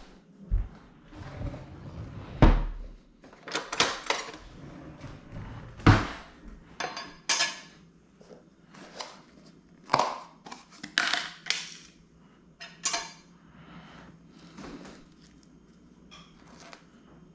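Irregular knocks and clinks of kitchen handling: cutlery, and a plastic tub of cream cheese being picked up, opened and put down on a stone countertop. Near the end, fainter scraping of a knife spreading cream cheese on toasted bagel halves.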